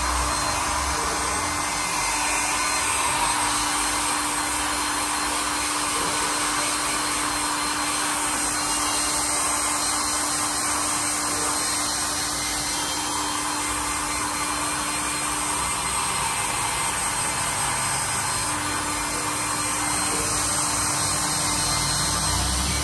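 Small hand-held hair dryer running steadily as it blows on wet hair, its airflow a loud, even rush with a steady low hum beneath it.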